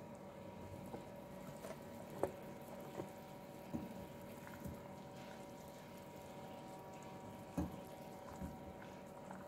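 Sugar syrup simmering faintly in a small saucepan with gulab jamun in it, stirred by a silicone spoon that gives a few soft knocks against the pan, spread through the stretch.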